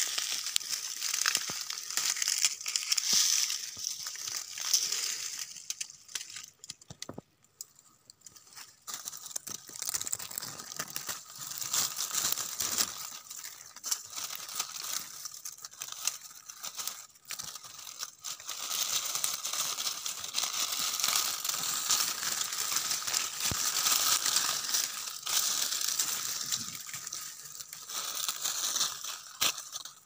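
Dry leaves and twigs crackling and rustling as hands sort through leaf litter, in spells with short lulls.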